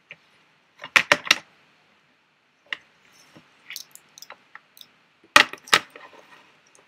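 Plastic segments of a 48-piece Rubik's Snake clicking and clacking as they are twisted and handled: a quick run of three or four clicks about a second in, a single click near three seconds, and two sharp clicks about halfway through.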